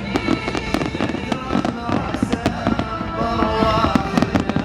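Fireworks going off in rapid succession, many sharp bangs and crackles several a second, with music playing alongside.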